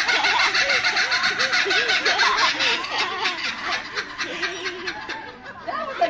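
Laughing kookaburra giving its laughing call, a loud run of rapid repeated notes that tapers off about halfway through.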